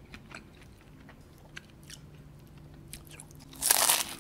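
Chewing with small, faint mouth clicks, then about three and a half seconds in a loud crunch as teeth bite into the puff-pastry crust of a beef Wellington.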